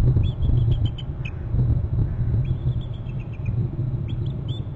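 A pair of bald eagles calling: runs of quick, thin, high squeaky chirps in clusters near the start, around the middle and near the end, over a steady low rumble.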